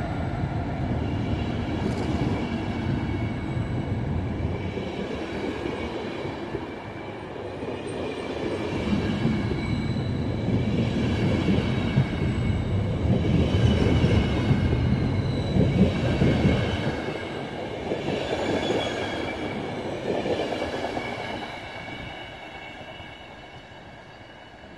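Intercity passenger coaches rolling past behind an electric locomotive: a dense, rising-and-falling rumble of wheels and bogies with a thin, high, steady wheel squeal above it. The sound fades over the last few seconds as the train draws away.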